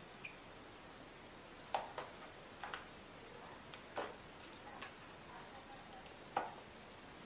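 European starling fledgling pecking at its food: faint, irregular sharp taps, about half a dozen spaced unevenly. The young bird is feeding by itself.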